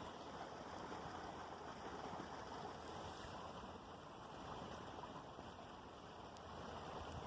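Faint, steady rushing noise of outdoor background ambience, with no distinct events.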